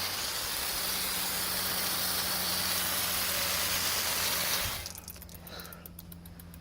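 Garden hose spray nozzle turned on, spraying water in a steady hiss that cuts off suddenly near the end as the nozzle is shut off.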